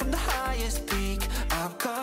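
Background music with a steady beat and deep bass notes.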